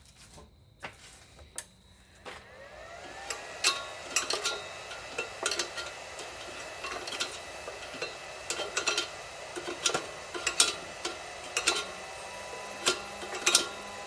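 Cornelius high-pressure compressor starting up about two seconds in: its motor spins up with a rising whine, then runs slowly with a steady high whine and irregular clicking knocks.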